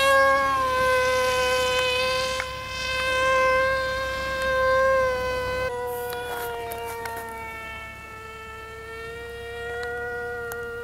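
Electric motor and propeller of a foam RC F-22 jet model in flight: a steady, high, buzzing whine. It swells louder twice in the first half, changes abruptly just past the middle, then sags slightly in pitch and comes back up near the end.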